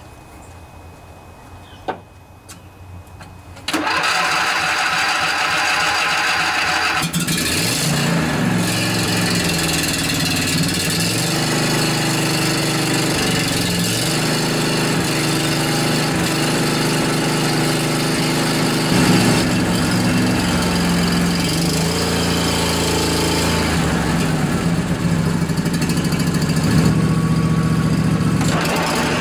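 A John Deere LA145 riding mower's Briggs & Stratton twin engine starts suddenly about four seconds in and keeps running, its speed shifting several times, as the freshly rebuilt cutting deck is tested. No bearing noise stands out: the owner hears no abnormal noises from the new deck bearings.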